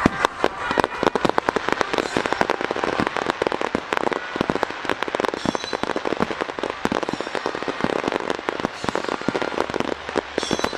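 Barrage of aerial firework shells from Isogai Enka bursting in quick succession: dense, overlapping sharp bangs and crackle, several a second, with no let-up.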